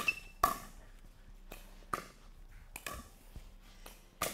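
A pickleball rally: sharp pocks of paddles striking the plastic ball and the ball bouncing on the hard court, several hits spaced about half a second to a second apart, each with a short echo.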